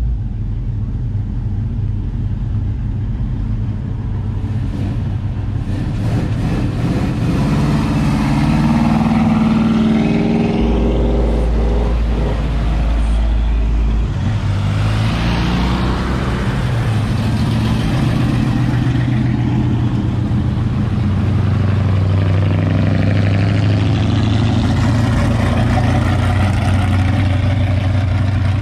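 Classic and muscle cars driving past one after another, their engines running loud with strong low exhaust notes. They swell as cars pull away, notably about a third of the way in and again about halfway.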